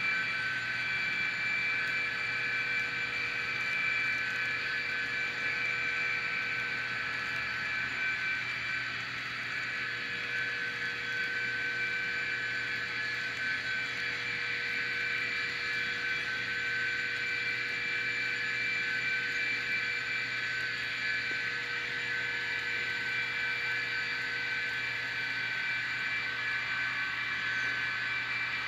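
N scale model diesel freight train running steadily: a constant hum with a high steady whine from the locomotives' ESU sound decoders and motors, along with the cars rolling on the track.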